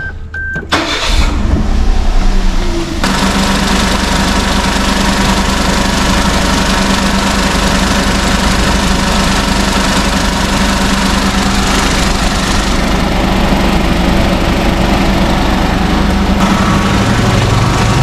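Suzuki Wagon R (MH23S) 660 cc three-cylinder engine started with the key after two short beeps, catching about a second in and running fast for a moment, then idling steadily. From about three seconds in a loud steady rush joins it as the air conditioning runs for its refrigerant charge.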